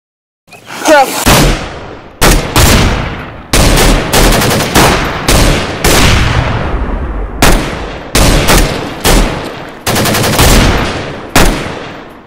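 Gunfire sound effects: a string of single shots and quick bursts of rapid fire, each with a long echoing tail. It starts about half a second in and stops abruptly near the end.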